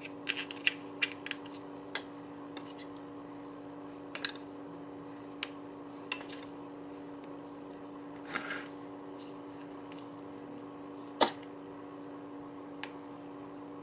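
A plastic rice paddle and a small utensil scrape and tap against a metal rice cooker pot and a plastic container, in scattered clicks with one sharper knock about eleven seconds in. A steady hum runs underneath.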